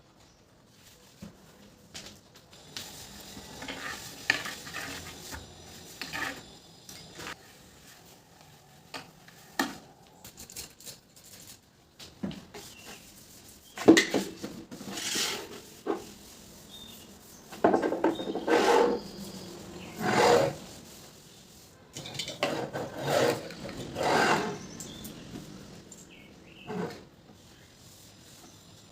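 Household objects being handled, set down and rubbed or scraped, giving irregular clatters, knocks and rustling scrapes with short pauses between them.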